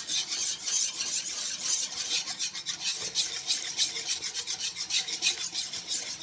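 A steel spoon stirring and scraping yogurt round a black kadhai in quick repeated strokes, several a second, whisking the yogurt smooth to break up its lumps.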